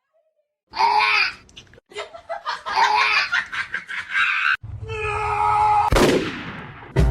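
High-pitched vocal sounds in short repeated bursts, then a sudden change to a steady low hum with a whoosh falling in pitch near the end.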